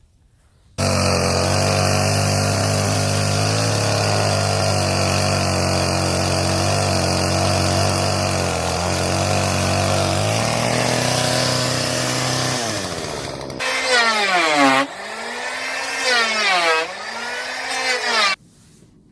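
Two-stroke chainsaw running steadily, then in the last few seconds its engine pitch repeatedly drops sharply and recovers as the chain bites into end-grain wood. It starts and stops abruptly.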